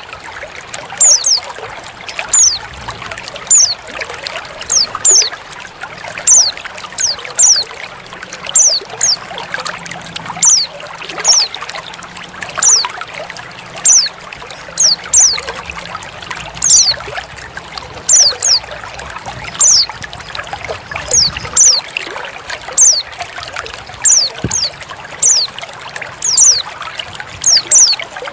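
Female white-eye (pleci) calls: short, high notes that slide downward, repeated about once or twice a second and often in pairs, over a steady trickle of running water. The calls are the female's contact call, used as a lure to set a male white-eye singing.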